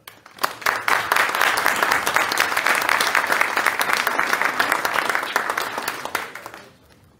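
An audience applauding, many hands clapping together. The clapping swells within the first second, holds steady, and dies away shortly before the end.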